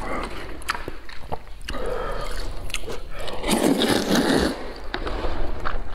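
A person eating wide rice noodles (hefen) from a paper bowl: wet chewing with small mouth clicks, then one long loud slurp of noodles about three and a half seconds in.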